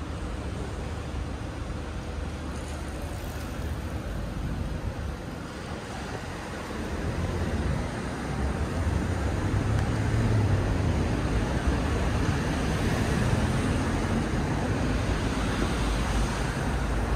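City road traffic passing, a steady rumble that grows louder about halfway through as vehicles go by close.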